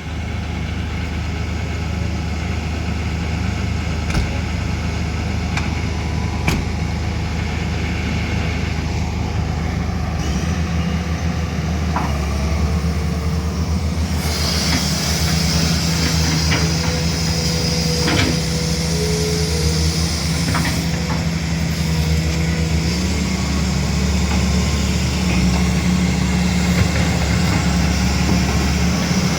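A 20-tonne-class excavator's diesel engine running steadily, with a few sharp knocks. A higher hiss joins about halfway through, and the engine note rises slightly later on.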